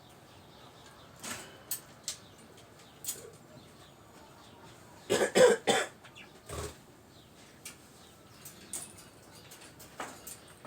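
A person coughing several times in quick succession about five seconds in, with one more cough a second later, among scattered light clicks and taps.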